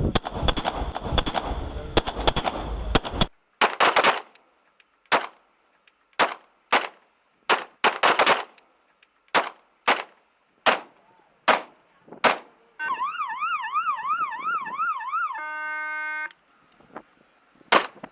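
Pistol shots fired one after another, about one to two sharp cracks a second, over wind on the microphone for the first few seconds. Partway through, the firing stops for a quickly warbling high tone that then holds steady for about a second. The shots start again near the end.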